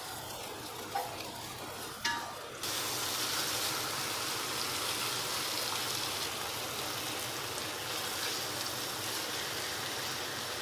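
Garlic and onion frying in peanut oil in a stainless steel wok, with two sharp clicks of the spatula against the pan. About two and a half seconds in, raw chicken pieces go into the hot oil and a much louder, steady sizzle takes over.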